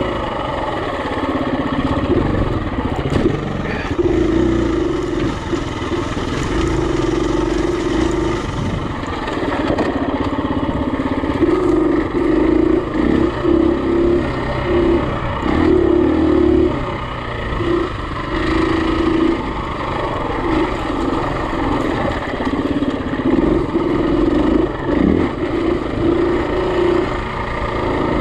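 Single-cylinder four-stroke dirt bike engine under way. It runs fairly steadily at first, then revs up and drops back in short bursts through the second half as the throttle opens and closes.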